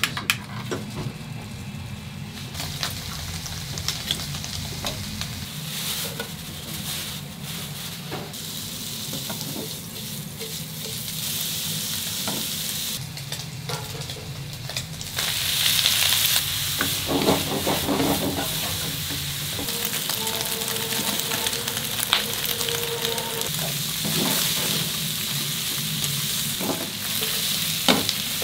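Food sizzling as it cooks, with frequent sharp clicks; the sizzle grows louder about halfway through.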